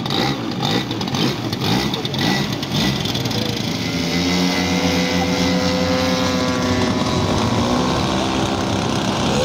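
Twin engines of a large radio-controlled scale model of an Airspeed Envoy running, at first unevenly, then from about four seconds in as a steady, higher engine note as the model takes off.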